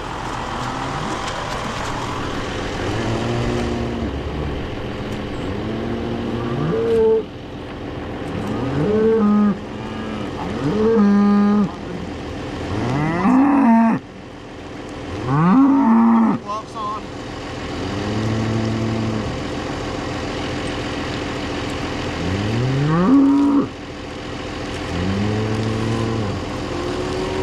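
Hungry beef cattle mooing over and over, a dozen or so calls from several cows, some rising sharply in pitch, as they wait to be fed. A John Deere 7520 tractor's engine idles steadily underneath.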